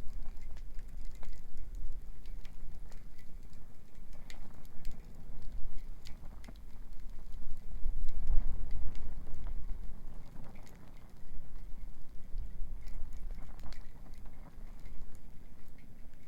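Beach bonfire of wood crackling, with scattered sharp pops and ticks, over a low rushing rumble of surf or wind that swells about halfway through.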